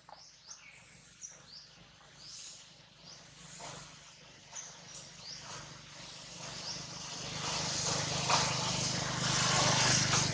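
Small birds chirping in quick, high, falling calls, then a motor vehicle going past: a low engine hum and road noise build up to the loudest point near the end.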